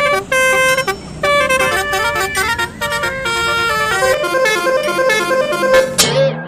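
Basuri telolet bus horn playing a quick melody of short stepped notes, the tune running on with barely a pause. Just before the end a falling swoop cuts across it.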